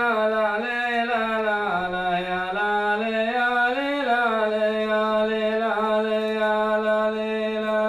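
A man's voice singing, without accompaniment, a slow, drawn-out 'ya la la' chant melody. Long held notes rise and fall gently in pitch.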